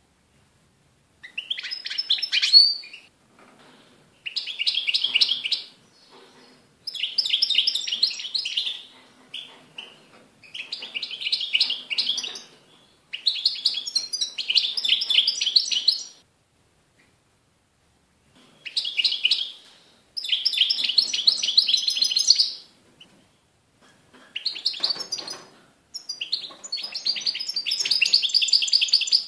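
European goldfinch (Carduelis carduelis) singing: a string of about nine phrases of rapid, high-pitched notes, each one to three seconds long, with short pauses between them.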